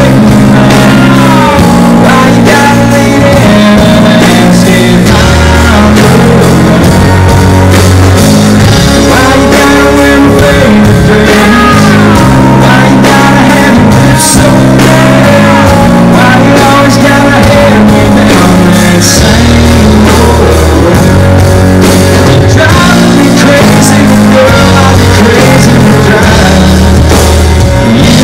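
Live country-rock band playing through a PA, very loud: guitars, bass and drums, with a lead vocal. Sliding high notes ride over the steady chords.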